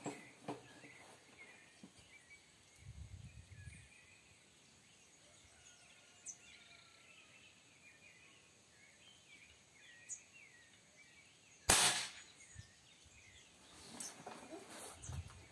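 A single shot from a .22 Beeman underlever air rifle firing a lead diabolo pellet: one sharp crack about three-quarters of the way through, with a short tail after it.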